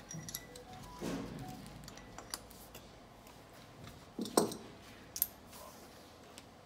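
Small clicks and clatter of a compression tester's hose and brass screw-in adapter being handled and moved to the next cylinder of a bare diesel engine, with a louder knock about four seconds in.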